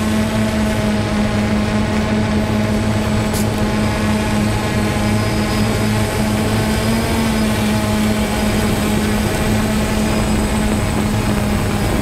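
F550 hexacopter's six motors and propellers buzzing at a steady pitch in a hover, heard close up through the onboard camera.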